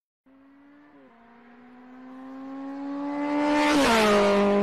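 A motor whine that climbs slowly in pitch and grows louder, then drops to a lower pitch about four seconds in with a rush of hiss, and holds steady.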